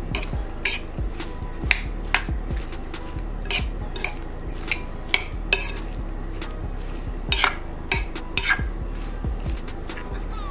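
Metal spoon stirring a bowl of chopped crab and shrimp ceviche in a large glass bowl, clinking against the glass about a dozen times at irregular intervals.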